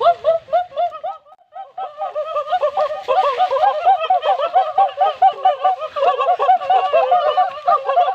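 Several young voices making rapid, repeated short calls that rise and fall, several a second. The calls pause briefly about a second in, then return as a dense overlapping chorus.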